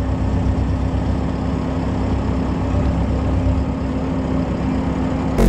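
Heavy diesel engine idling steadily: a constant low drone with a steady hum.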